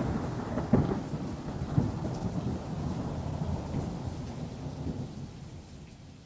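Thunder rumbling with rain, with a couple of louder rolls in the first two seconds, then fading out gradually.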